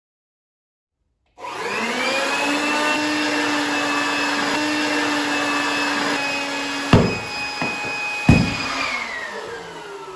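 Electric blower starting abruptly and running steadily with a whine as it inflates a giant balloon; two sharp knocks near the end, then the motor shuts off and winds down with falling pitch.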